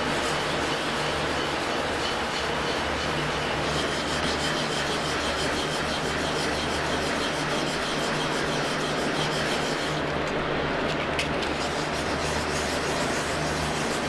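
Steady sanding of a wood-and-resin sign, an even rubbing rasp over a low motor-like hum; the highest hiss drops out briefly about ten seconds in.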